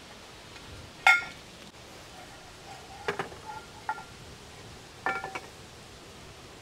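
Hard objects clinking, each strike leaving a short ringing tone: one loud clink about a second in, then lighter groups of clinks around three and five seconds in.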